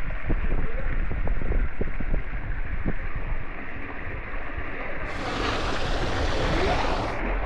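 Steady rush of water flowing into the water slide's tube, with a few light knocks in the first three seconds and a brighter hiss for about two seconds near the end.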